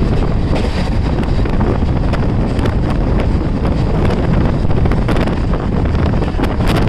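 Wind buffeting the microphone at the open window of a moving passenger train, over the train's steady running rumble.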